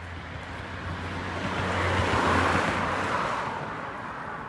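A car passing by, its road noise swelling to a peak about halfway through and then fading away.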